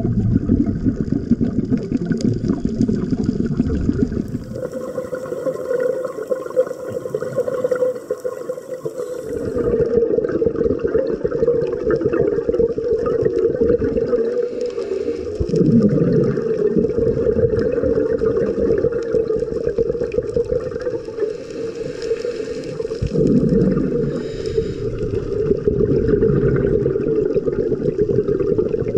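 Underwater sound picked up by a camera in its dive housing: a steady rush of water noise that changes abruptly a few times. Twice it swells into a louder low burst, typical of a scuba diver's exhaled bubbles from the regulator.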